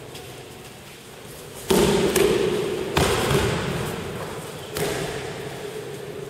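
Aikido throws and breakfalls on gym mats: four sudden thuds and slaps of bodies landing, the first a little under two seconds in, each with an echo trailing after it.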